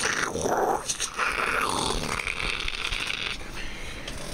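A man's voice making whooshing, rasping spaceship-engine noises that rise and fall for a few seconds, as if flying a toy ship.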